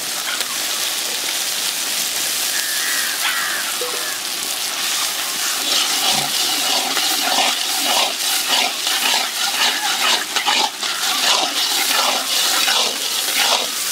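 Masala with freshly added onion paste sizzling steadily in a large kadai. From about five seconds in, a metal slotted ladle stirs and scrapes it in quick, irregular strokes.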